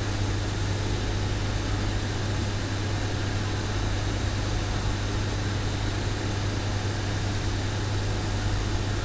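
A steady low hum under a constant hiss, unchanging throughout, with no distinct events.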